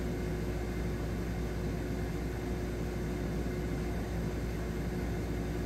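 Steady room background noise: a constant low hum and hiss with a faint steady tone, no distinct events.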